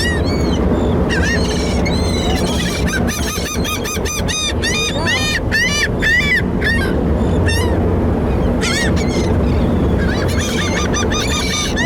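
Gulls calling over and over, many short arched calls overlapping, over a steady low rumble.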